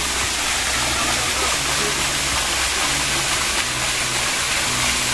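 Rain-swollen runoff rushing down a steep concrete hillside drain in a steady, even torrent of water.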